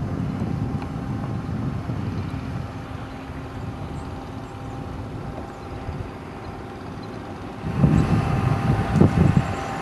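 Wind rumbling on the microphone over a faint steady high hum. The gusts grow louder near the end.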